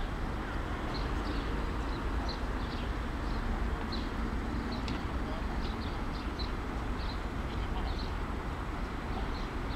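Small birds chirping in short high calls, about two a second, over a steady low outdoor rumble.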